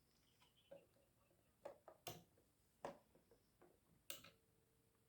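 A handful of faint, sharp clicks and knocks, scattered irregularly, with a faint steady tone starting near the end.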